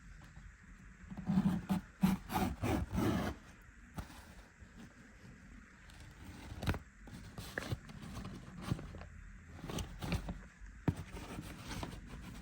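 Scraping and rustling handling noise for about two seconds, followed by scattered knocks and clicks.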